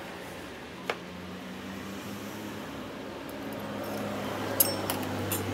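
Steady low hum with a few sharp metallic clicks and taps of screwdrivers working on an electric motor's housing and terminal box: one about a second in, then several close together near the end.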